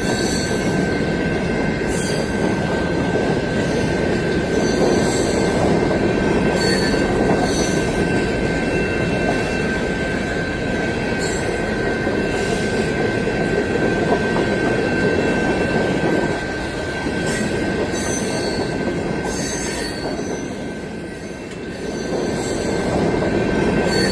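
Freight cars of a long CSX freight train rolling past, with a steady high-pitched wheel squeal held throughout and scattered short clicks from the wheels.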